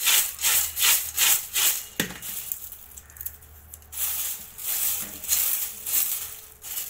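Crisp fried corn chivda flakes rustling and crackling as a bare hand tosses and presses them in a steel vessel, in quick strokes of about two or three a second. A sharp knock comes about two seconds in, followed by a quieter stretch before the strokes pick up again.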